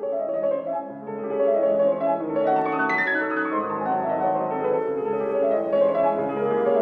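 Background piano music, a classical-style piece with a string of notes.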